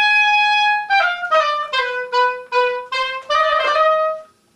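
Oboe playing a short phrase: a long held high note, then a run of short, separately tongued notes stepping down and repeating on one lower pitch, ending on a held note that stops shortly before the end.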